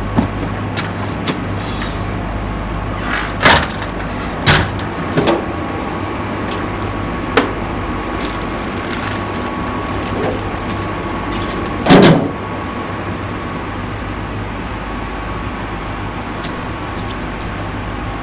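Cupboard doors being handled, knocking and clicking a few times, the loudest knock about twelve seconds in. Under them runs a steady electrical hum with a faint high tone.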